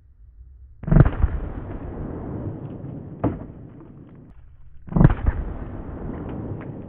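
Two 12-gauge Benelli shotgun shots of triple-decker buckshot, about four seconds apart, each followed by a long rolling echo, with a sharper crack between them.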